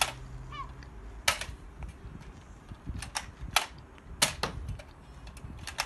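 Nerf dart blaster being primed and fired again and again: a series of sharp plastic clacks, several of them in close pairs.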